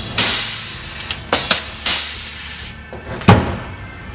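Pneumatic rivet tool cycling to pull and set an Orlock structural blind rivet: a long burst of air hiss that fades over about two seconds, then three short hisses, followed by one sharp knock about three seconds in.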